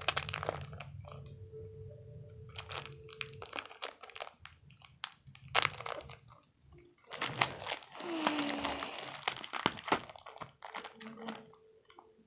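Crinkling plastic candy wrapper of a Twizzlers package being handled and pulled at, a run of sharp crackles with a longer, denser stretch of crinkling about two thirds of the way in.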